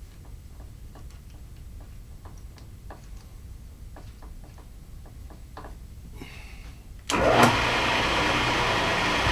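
Scattered light ticks and clicks of tool handling, then about seven seconds in a drill press's electric motor switches on and runs steadily and loudly.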